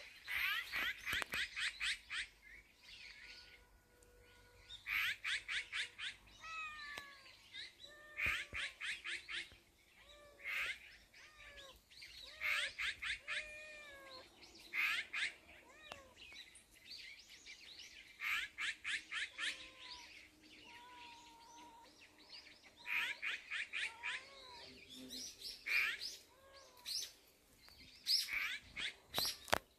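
Wild birds chirping in quick bursts of rapid, evenly spaced high notes that repeat every few seconds, with fainter short falling calls between them.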